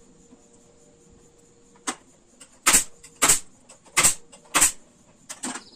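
Pneumatic pin nailer firing pins into a wooden stool's glued seat: one sharp shot, then four loud shots about every half second, and two lighter ones near the end.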